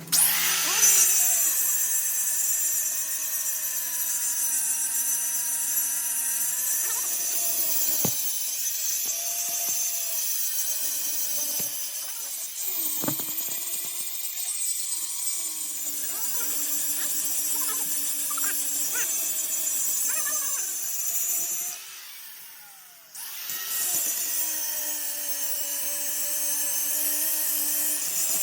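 Power tool running steadily under load, a sawing or cutting sound with a constant whine and a bright hiss. It stops briefly about 22 seconds in, then starts again.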